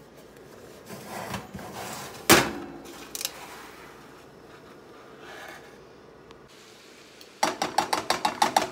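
A single loud metallic clank about two seconds in, with a smaller knock just after, as the oven rack and foil roasting pan are handled with an oven mitt. Near the end, a quick run of about ten sharp metal clicks as steel tongs tap and snap against a skillet while turning shrimp.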